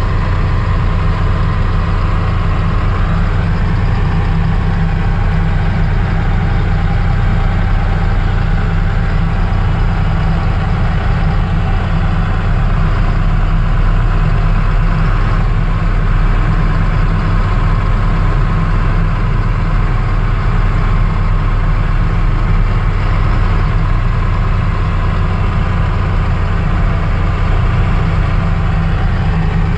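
Heavy diesel engines of a Cat 966D wheel loader and its front-mounted SnoGo MP3D snowblower running steadily under load as the blower cuts through deep snow, heard from inside the loader's cab as a constant low drone.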